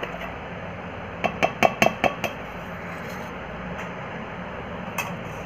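A glass bowl clinking against a steel mixer-grinder jar about seven times in quick succession, as mango pieces are tipped and tapped out into the jar, with one more clink near the end.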